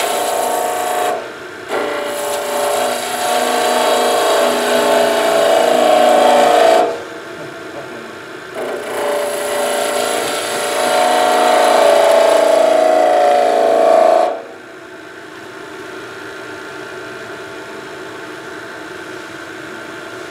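Skew chisel cutting a spinning wooden spindle on a wood lathe, a scraping, hissing cut with a steady hum in it. It comes in three passes, a brief one and then two of about five seconds each. Then the chisel comes off the wood and only the lathe runs, more quietly.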